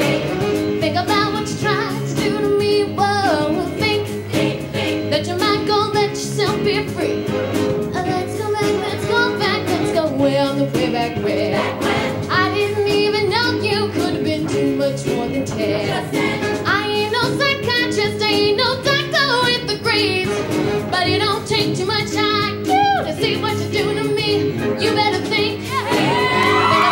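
High school show choir singing with its live band accompaniment.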